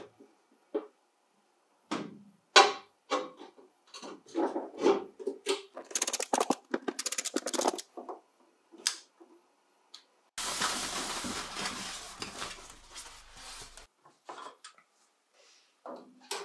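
Hand-assembly noises on a sheet-metal sandblasting cabinet: a quick string of clicks, taps and metallic knocks as a screwdriver drives screws and parts are handled. Partway through comes a steady rough noise lasting about three seconds, followed by a few more taps.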